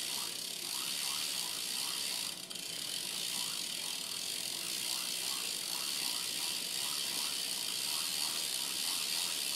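A BMX rear wheel spinning, with a steady rhythmic ticking about three times a second over a rough running noise from its hub. The owner says the worn-out wheel bearings are what can be heard.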